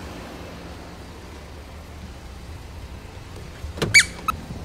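Steady low outdoor rumble, then about four seconds in a click and a short, high squeak that dips slightly in pitch, followed by a fainter squeak, as a Jeep's exterior door handle is pulled.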